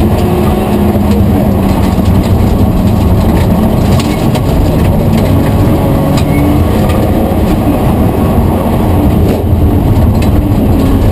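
BMW M3's straight-six engine heard from inside the cabin, running loud and fairly even with small rises and falls in pitch, over road noise with scattered clicks and knocks.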